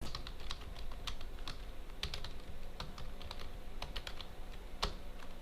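Typing on a stock Dell computer keyboard: quick, irregular key clicks, several a second.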